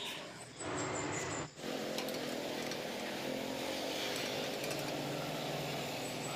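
A machine running steadily with a low, even hum. It comes in about a second and a half in, after a brief dip.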